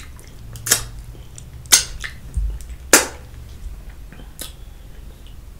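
Four sharp, wet smacking clicks about a second apart: lip smacks as she licks spicy sauce from her fingers while eating.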